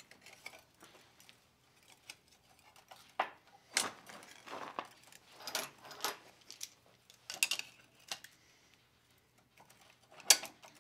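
Steel pieces and a steel square clinking and knocking on a metal workbench as flat steel hangers are set in place against square tubing, in scattered sharp clinks, the loudest about ten seconds in.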